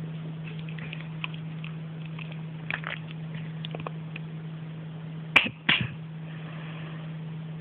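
A steady low electrical hum in the recording, with faint scattered ticks and rustles. About five and a half seconds in come two sharp knocks in quick succession, with a brief dropout between them, typical of handling noise.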